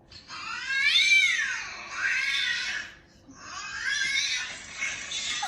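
A cat meowing in three long, drawn-out calls; the first rises and then falls in pitch.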